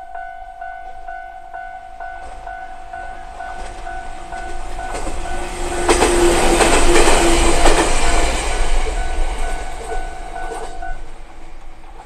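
Japanese level-crossing alarm ringing its bell a little over twice a second while a train passes over the crossing. The train is loudest about six to eight seconds in, and the bell stops near the end as the crossing clears.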